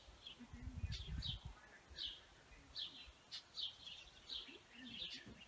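Faint bird chirping, short descending notes repeated irregularly about twice a second, with a brief low rumble about a second in.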